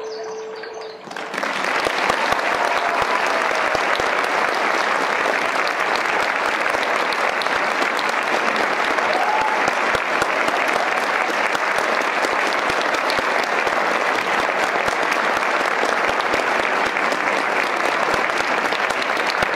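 Recorded dance music ends on a held note about a second in, then a theatre audience applauds steadily, with a few faint cheers.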